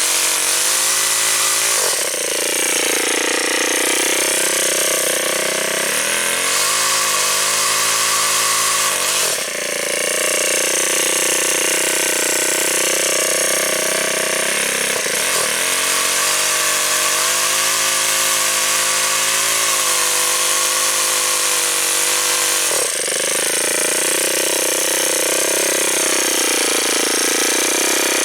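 Ryobi S430 four-stroke trimmer engine driving its chainsaw attachment at high revs, the engine speed dipping and recovering several times as the chain cuts into a dead limb.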